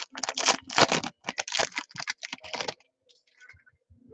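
Foil trading-card pack wrapper being torn open and crinkled in the hands: a dense run of crackling that stops about three seconds in, followed by faint rustles.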